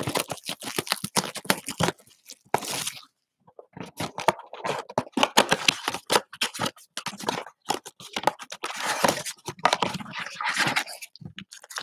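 Plastic wrappers of trading card packs being handled and torn open, a dense crackling and crinkling with a short pause about three seconds in.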